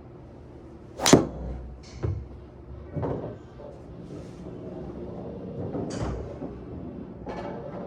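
Sharp crack of a Titleist TSR4 titanium driver striking a golf ball about a second in, followed by a few softer knocks.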